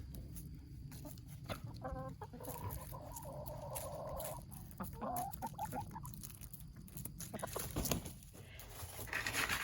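Hens clucking as they peck at scraps. A quick run of clucks comes about two seconds in, followed by a longer drawn-out call and a few more clucks.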